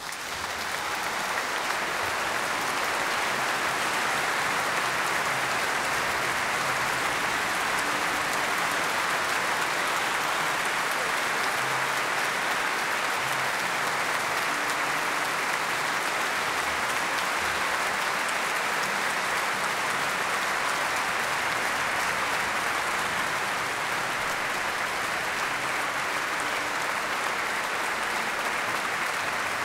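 A large concert audience applauding. The clapping breaks out right at the start, swells over the first second or two, then holds steady.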